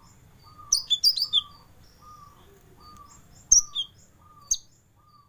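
Kolibri Ninja sunbird singing sharp, high chirps in quick clusters about a second in, again around three and a half seconds, and once more near the end. Beneath them a short lower note repeats steadily about every two-thirds of a second.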